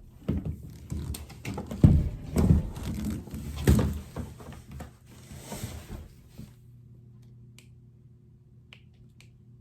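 Handling noise: rustling and several knocks as the plastic hose and parts of a hair dryer set are moved about. It gives way to a faint low hum after about six and a half seconds.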